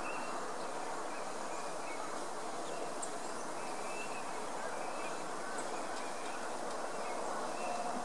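Faint, short bird calls repeated about once a second over a steady background hiss.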